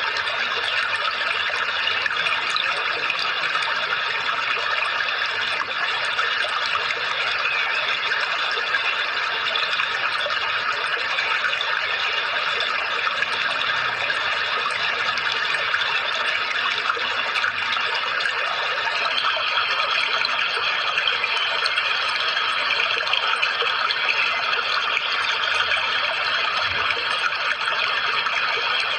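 Steady rushing of running water, an even wash of noise without breaks or changes in level.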